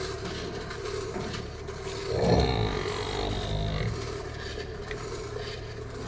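Water buffalo being hand-milked: jets of milk squirting into a steel bucket already partly full of milk. A short, louder low vocal sound comes about two seconds in.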